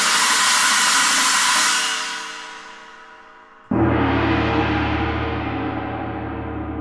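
Struck metal percussion in a solo percussion piece. A bright, hissy metallic ring holds for about two seconds and then fades away. A little under four seconds in, a gong is struck and rings on with a deep, steady hum, dying away slowly.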